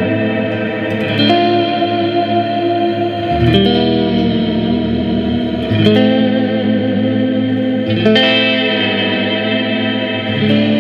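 Clean electric guitar with Burstbucker pickups played through an EarthQuaker Devices Astral Destiny octave reverb pedal: five chords struck about every two seconds, each ringing on into a long reverb wash that overlaps the next.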